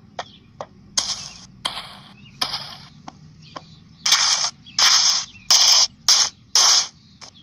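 Electronic My Little Pony toy giving out short hissing, crackly bursts with faint clicks between them. The bursts come singly at first, then several in quick succession in the second half.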